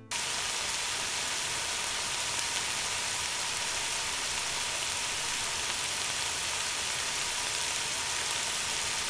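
Ground beef with onion and peppers frying in olive oil in a pan at low heat: a steady sizzle as the water released by the meat cooks off.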